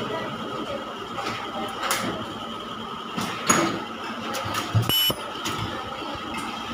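Ultrasonic plastic welding machine working on a plastic phone-charger casing: scattered clicks and knocks of the part being handled and pressed, with a brief high-pitched tone about five seconds in.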